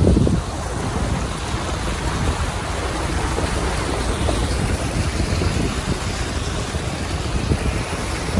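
Floodwater rushing and splashing against a vehicle as it drives through a flooded street, a steady hiss of churned water. A heavier low rumble drops away about half a second in.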